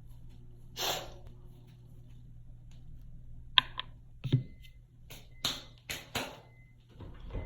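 A person sniffing and breathing sharply through the nose while trying to bring on a sneeze. There is one sniff about a second in, two sharp clicks near the middle, and a quick run of four short sniffs near the end. No sneeze comes.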